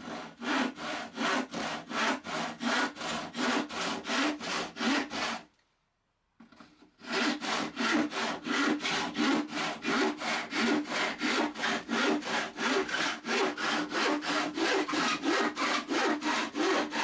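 Rusty crosscut hand saw cutting pallet wood in quick, even back-and-forth strokes, about two to three a second, with a pause of about a second and a half some five seconds in. The teeth are rusted all the way down, and the cut is very rough.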